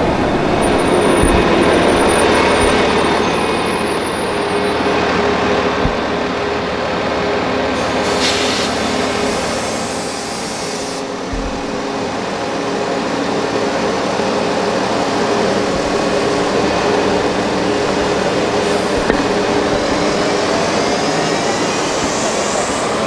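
Road traffic: a city bus's engine runs close by and other vehicles drive along the road, a steady mechanical rumble with a rising whine near the end as another vehicle approaches.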